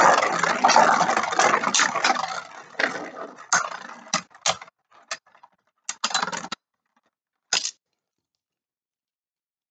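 Two Beyblade spinning tops, Wonder Valtryek and Spiral Treptune, whirring and scraping around a plastic Beyblade stadium with a dense metallic rattle and clashes. After about two and a half seconds the noise thins to separate sharp clicks and knocks as the tops slow and stop, the last knock coming nearly eight seconds in.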